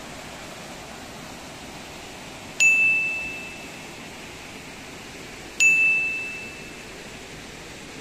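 Two loud bell-like dings about three seconds apart, each a sharp strike ringing on one clear tone and fading over about a second, over the steady rush of small waterfalls.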